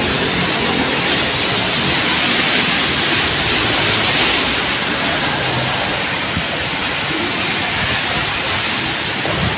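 Steady loud hiss of heavy rain mixed with car tyres swishing past on a wet road.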